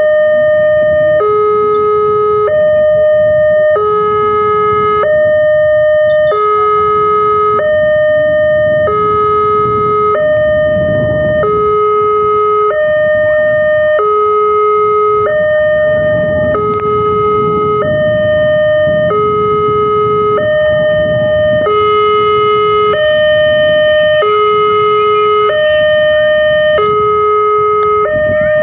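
Railway level-crossing electronic warning alarm sounding a loud two-tone signal, alternating high and low about every two-thirds of a second, warning that a train is coming and the barrier is down. A low rumble of passing traffic or train runs beneath it.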